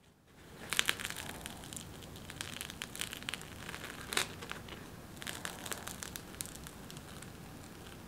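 A baked bagel being torn apart by hand: the crust crackles and the crumb tears in a close, continuous run of crisp crackles, starting about half a second in and loudest early on and again about four seconds in.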